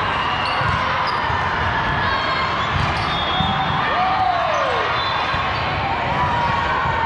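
Volleyball gym during a match: a steady din of many voices, with repeated dull thuds of balls bouncing and being hit on the court.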